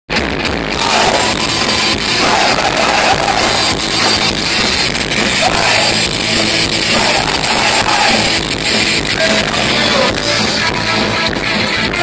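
Punk rock band playing live through a stage PA: electric guitars and drums with a steady beat.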